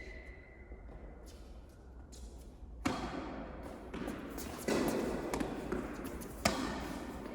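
Two sharp tennis ball impacts echoing on an indoor court, about three and a half seconds apart, the second the louder, with shuffling noise between them.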